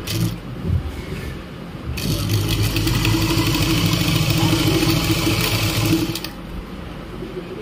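Straight-stitch sewing machine stitching through fabric at a steady speed, starting about two seconds in and stopping about four seconds later. A few light handling knocks come before it starts.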